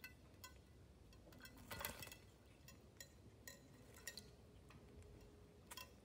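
A Quaker parrot bathing in a shallow glass bowl: faint scattered drips, small splashes and clinks against the glass, with a brief louder flurry of splashing about two seconds in.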